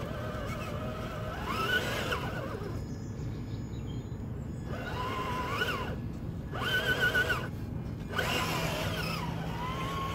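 Traxxas TRX-4 K5 Blazer RC crawler's electric motor and gear drive whining under load on a steep climb. The whine rises and falls in pitch with the throttle and stops and starts again a few times.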